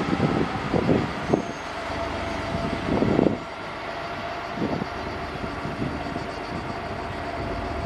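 FS D445 diesel locomotive running under power as it hauls a regional train away along the track. A steady engine rumble with a faint steady tone, broken by a few irregular low thuds in the first few seconds.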